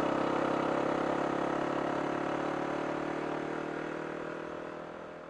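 Kawasaki KLR250's single-cylinder four-stroke engine running steadily while the motorcycle cruises, slowly fading out over the last few seconds.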